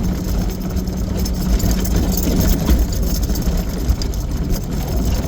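Vehicle engine running steadily while driving, with a steady low hum that fades about halfway through.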